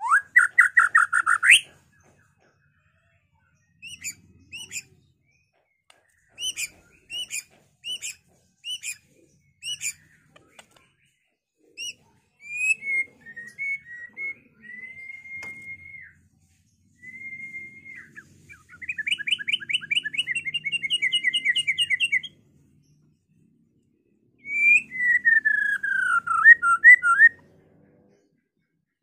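White-rumped shama (murai batu) singing a varied song in separate phrases with pauses between them. It opens with a fast trill, then gives runs of short repeated notes about two a second and clear held whistles. A second rapid trill follows, and near the end a falling slurred phrase.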